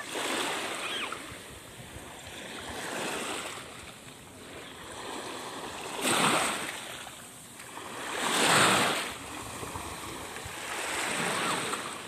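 Small waves washing up on a sandy shore, the surf swelling and falling back every few seconds, loudest about two-thirds of the way through.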